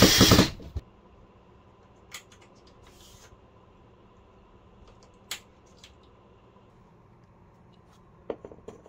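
Cordless screw gun driving a screw into an aluminum rod-rack track, stopping under a second in. Then a few sharp clicks, with a cluster near the end, from plastic rod rings being handled and slid along the track.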